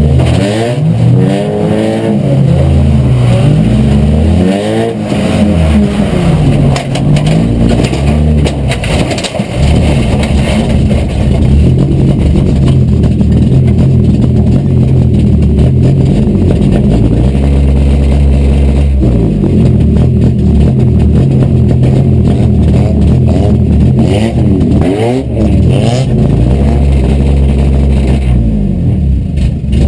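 Acura Integra four-cylinder race car engine heard from inside its stripped cabin, revving hard under load on ice. The engine note rises and falls repeatedly in the first few seconds and again near the end, and holds steadier in between.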